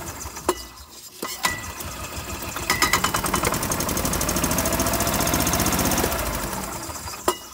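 The single-cylinder petrol engine of a 2005 Club Car DS golf cart, run in service mode in neutral with the throttle pressed. After a few clicks it comes up to a steady, fast-pulsing run about three seconds in, holds, then dies back near the end as the throttle is let off. The battery voltage climbing to about 14 V while it runs shows the starter-generator is charging and the battery is healthy under load.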